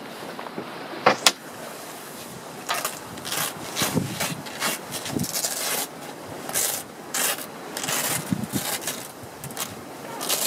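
Fabric of a pair of Njord bib sailing trousers rustling and swishing as they are handled and pulled on, in a string of short rubbing swishes. Two sharp clicks about a second in.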